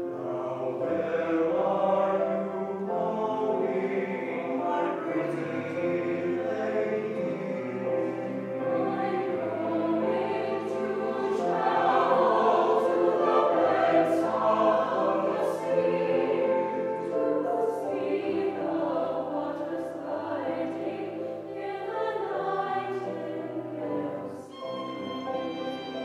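High school mixed choir singing a classical choral piece with a violin playing along; the singing swells loudest about halfway through. Near the end the voices drop back and a thinner, higher instrumental line comes forward.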